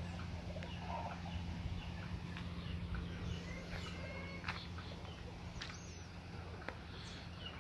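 Birds calling in short, scattered calls, with several sharp clicks, over a steady low hum.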